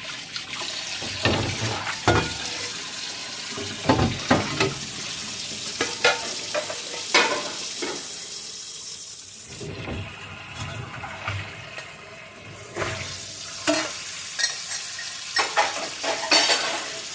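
Dishes and pots clinking and clattering as they are lifted out of a full kitchen sink, over a steady hiss of running water.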